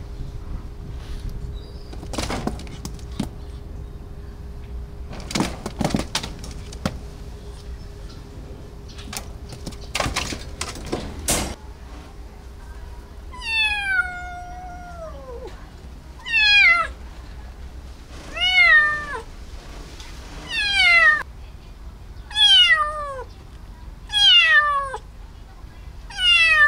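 Kitten meowing over and over: about seven loud calls roughly two seconds apart, each sliding down in pitch, starting about halfway through. Before the meows, a few scattered clicks and knocks.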